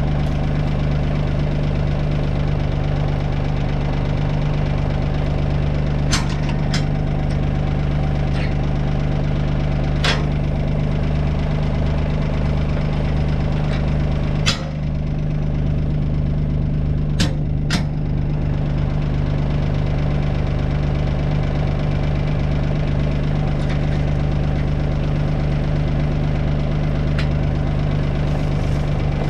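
Kioti CK2610 compact tractor's three-cylinder diesel engine running steadily, with a few sharp knocks or clanks over it, in pairs in places.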